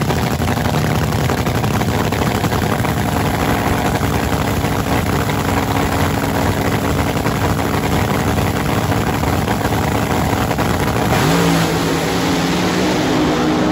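Nitro-burning fuel altered drag car's engine running loud at the starting line, then launching about eleven seconds in, its note rising sharply as the car pulls away.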